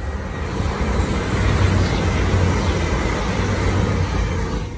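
TransPennine Express Class 802 multiple-unit train passing close at speed. A steady rush of wheel and air noise over a low rumble builds to a peak mid-way, then eases as the train goes by.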